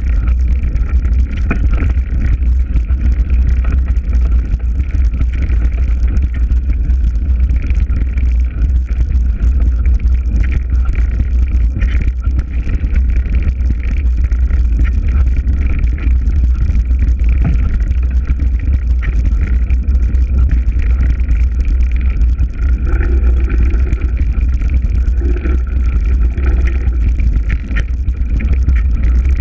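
Wind gusting over the microphone as a low, steady rumble, with a breeze moving through the trees.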